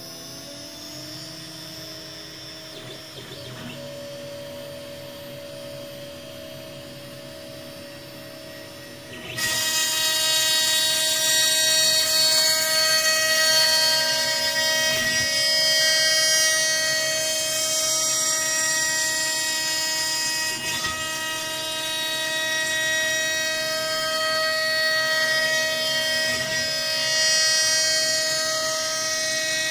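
CNC router spindle running with a steady whine; about nine seconds in the end mill bites into a clamped wooden board and the sound jumps to a loud, noisy cutting that carries on as it mills a slot along the wood.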